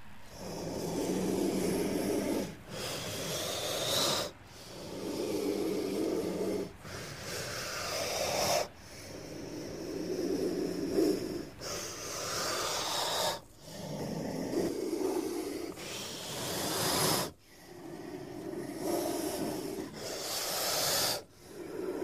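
Snake hissing in a series of loud, breathy hisses, roughly one every two seconds, each swelling and then cutting off sharply.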